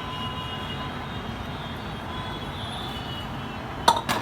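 Steady background noise, then two sharp knocks near the end, about a quarter second apart: a utensil knocking against a dish as the chicken keema filling is put onto the rolled-out dough.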